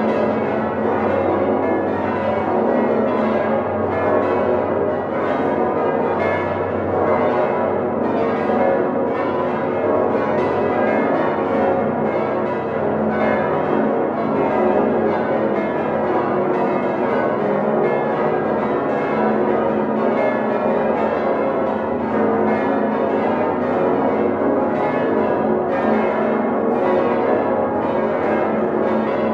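Full peal of the Domtoren's big swinging church bells, all ringing together by hand in one continuous, dense clangour of many overlapping strikes and tones. The bells are heard loud and close from inside the bell chamber.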